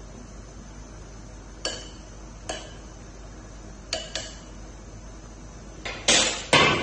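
A metal spoon knocking lightly against a clay pot four times while stirring chopped chillies into simmering tofu broth, then a cluster of louder clanks near the end, under a steady low hiss.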